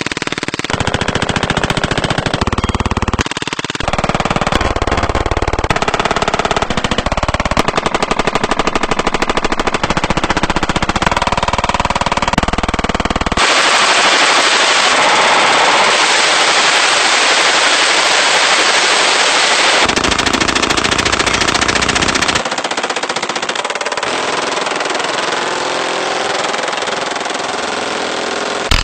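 Automatic gunfire: long, rapid strings of shots from several different firearms in turn, including a submachine gun, a belt-fed machine gun and a drum-fed pistol, with sudden changes in sound between them.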